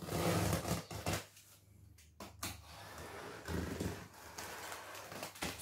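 Box cutter slitting packing tape along the seam of a cardboard box, a scraping, tearing sound that is loudest for the first second and a half and then goes on more quietly in shorter strokes.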